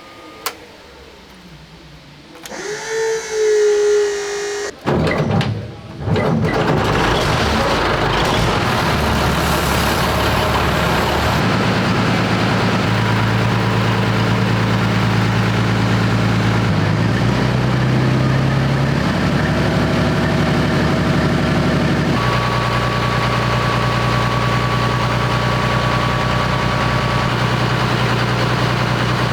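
BMP-1's UTD-20 V6 diesel engine being started: a whine of the engine turning over for a couple of seconds, then it catches about six seconds in and runs loudly and steadily, its speed shifting between a few steady levels. It is being run to bring it up to temperature.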